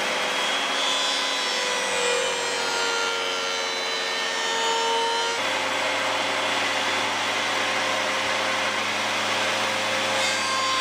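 Jointer running, its cutterhead taking a very light skim pass off a 5/8-inch Baltic birch plywood insert fed across on a push block, to flatten a board that isn't flat. Steady whirring and cutting noise, with a faint tone that sags a little in pitch a few seconds in.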